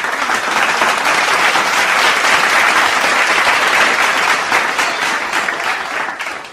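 Applause, a dense clapping of many hands. It swells in at the start and thins out near the end.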